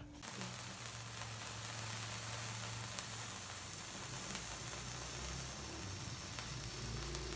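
Cake fountain sparkler candle fizzing with a steady hiss and a few faint crackles.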